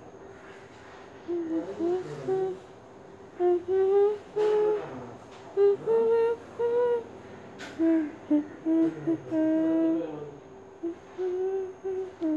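A person humming a wordless tune in short held notes, over a faint steady background tone.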